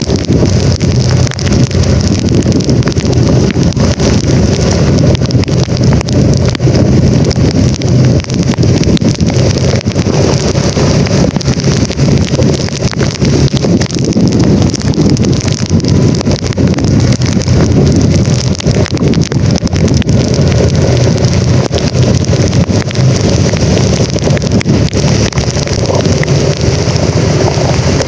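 Steady, loud rush of wind buffeting the microphone over the running noise of a vehicle moving along a rain-soaked road in a storm.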